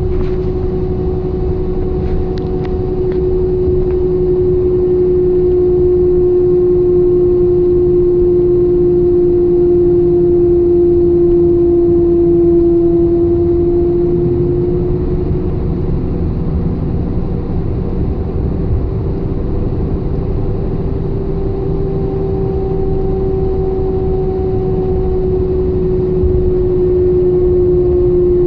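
A 2002 Chevrolet S-10 pickup making a steady whining hum: one strong tone that sags slightly in pitch and comes back up, over the low rumble of the truck running.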